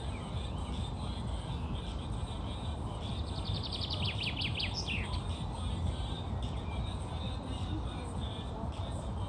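A bird sings one fast trill of about a dozen quick notes, starting about three seconds in and lasting under two seconds, over steady outdoor background noise with faint continuous chirping.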